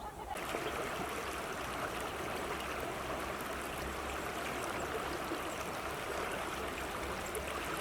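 River water flowing over rocks: a steady rushing that starts abruptly a moment in.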